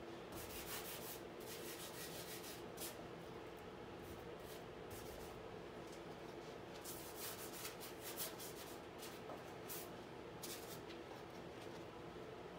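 Paintbrush strokes on a stretched canvas: a string of short, dry rubbing swishes, irregularly spaced, over a faint steady hum.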